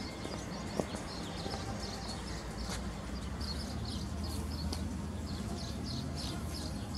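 Small birds chirping in quick, repeated high notes over a steady low rumble, with a couple of faint sharp clicks.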